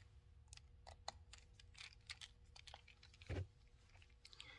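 Faint, scattered clicks and ticks of a screwdriver driving screws back into an Andis clipper's housing, with one soft thump a little over three seconds in.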